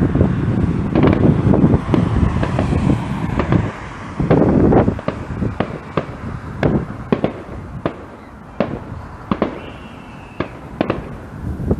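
Fireworks going off: a dense run of bangs and crackling over a low rumble, thinning to scattered sharp cracks in the second half, with a faint whistle late on.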